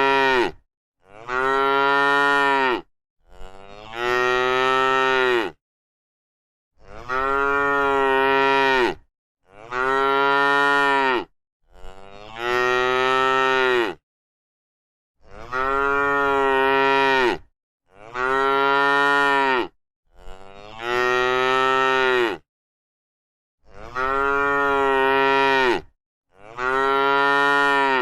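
A cow mooing over and over, about a dozen long moos of roughly two seconds each, with short gaps of dead silence between them.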